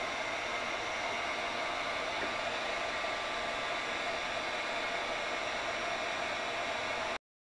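Electric heat gun (a Wagner) running steadily, its fan blowing hot air onto a snowmobile clutch spider to soften the green Loctite on its threads. The sound stops abruptly near the end.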